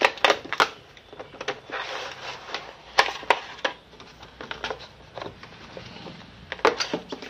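Plastic shrink wrap crinkling and cardboard packaging being handled as a boxed pair of earphones is unwrapped and opened, with several sharp crackles and clicks between stretches of rustling.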